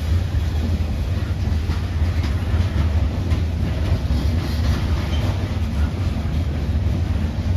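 Freight train rolling past: a steady low rumble, with wheels clicking over the rail joints.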